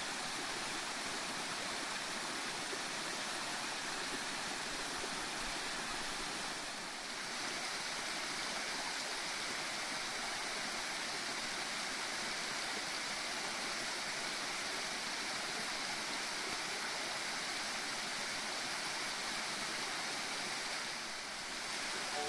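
Small waterfall: water falling and rushing in a steady hiss, briefly softer twice.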